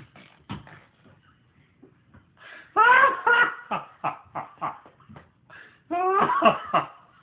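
A man and a baby laughing: two loud bursts of high, falling laughs about three seconds in and again near six seconds, with short breathy laugh pulses between them.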